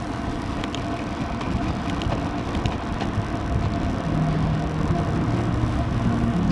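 Wind rushing over the microphone of a camera mounted on a road bike descending at about 30 km/h, mixed with tyre noise on the tarmac. A low steady tone joins about two-thirds of the way through.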